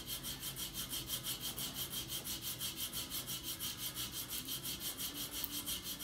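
Back of a layered cue tip being rubbed back and forth on 60-grit sandpaper in quick, even strokes, about six a second, making a steady scratching hiss. The back is being roughed up to a matte finish so the glue will grip.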